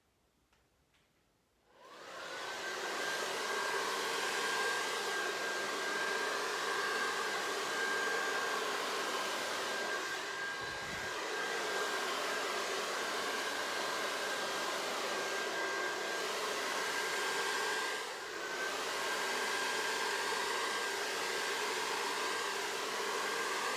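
Hair dryer switched on about two seconds in and running steadily, a rushing airflow with a high steady whine, dipping briefly about eighteen seconds in.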